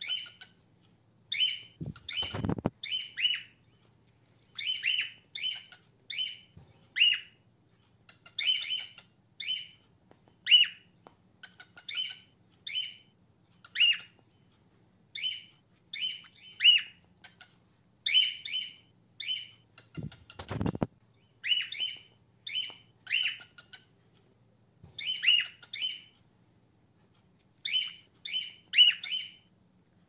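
Female cockatiel giving short, sharp contact calls over and over, often in runs of two or three, with brief pauses between runs; only this one plain call and no whistled song, the sign of a female. Two low thumps, about two seconds in and again near twenty seconds in.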